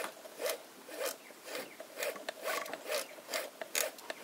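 Toy sewing machine, run by a small electric motor through a friction drive on its handwheel, stitching slowly through fabric: a faint regular clatter about twice a second.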